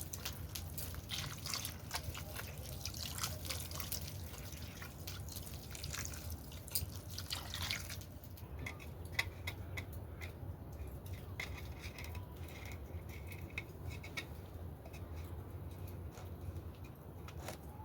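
Water dripping: many irregular drips and light taps, thick for the first half, then sparser.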